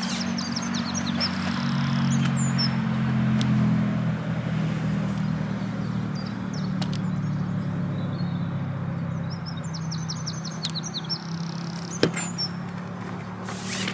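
Small birds chirping in quick trills near the start and again about ten seconds in, over a steady low hum like a distant engine. A single sharp knock about twelve seconds in.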